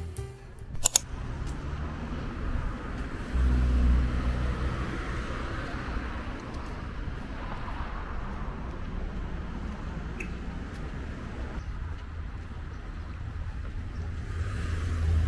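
City street traffic: a steady rumble of cars on the road, swelling louder as vehicles pass about four seconds in and again near the end. A single sharp click about a second in.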